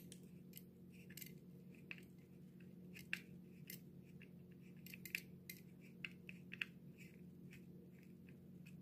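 Small Phillips screwdriver turning screws out of a plastic diecast display base: faint, irregular small clicks and creaks, over a steady low hum.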